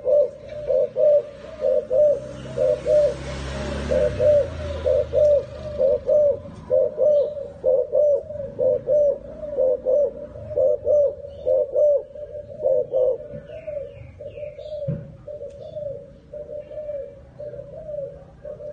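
Spotted dove cooing over and over, a steady run of low coos at about two a second, strung into phrases with short breaks.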